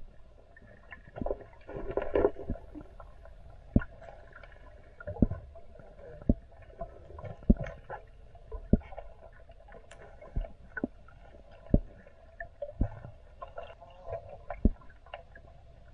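Underwater sound through a submerged camera: a muffled, gurgling water background with sharp clicks or knocks about once a second.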